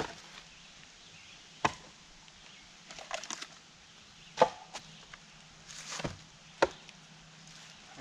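Split firewood being stacked onto a woodpile: pieces of wood set down on the pile, giving sharp wooden knocks and clacks at irregular intervals a second or two apart, several in a row.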